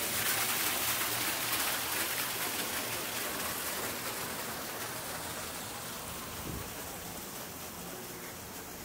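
Water pouring from a wooden sluice flume and splashing onto rocks: a steady rushing splash, loudest at first and slowly fading.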